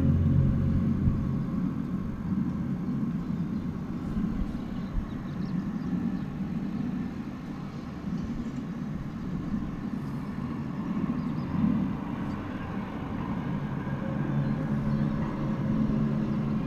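Low, droning, trumpet-like tone with stacked harmonics, heard outdoors over a steady low rumble. It fades out about a second in, leaving the rumble, and swells back about 14 seconds in.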